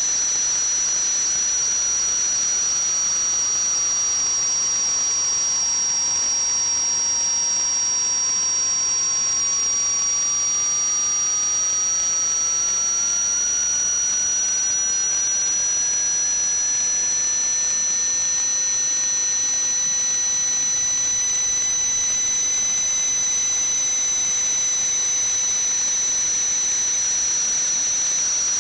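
A steady hiss with two high whistling tones held throughout, and a third, lower whistle that slowly falls in pitch for the first several seconds and then gradually rises again.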